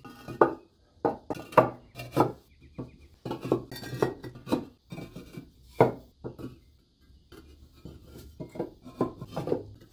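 Firebricks set down and knocked into place on a concrete paving slab: an irregular run of hard knocks and clinks, brick on stone and brick on brick.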